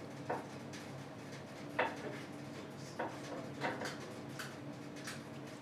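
About half a dozen light clicks and knocks of small objects being handled, the loudest a little under two seconds in, over a steady low hum.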